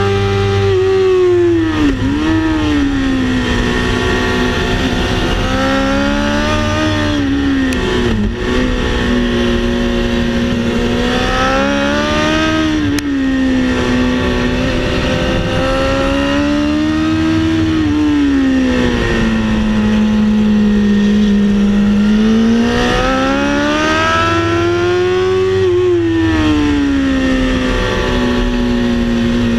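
Racing car engine heard from inside the car on track, its pitch climbing under acceleration, dropping sharply at gear changes and falling away under braking before rising again, over and over.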